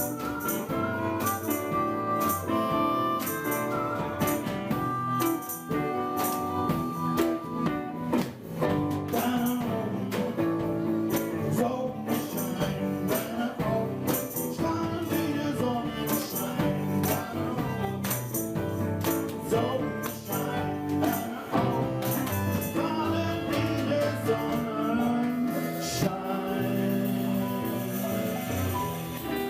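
Music: an instrumental track with a regular beat of percussion strikes.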